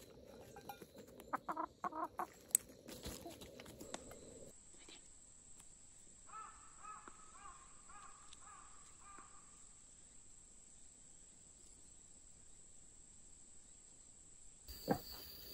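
Chickens clucking, with scratching and pecking noises, for the first few seconds. Then a quieter outdoor scene with a steady high-pitched hum and a bird calling several times in quick succession.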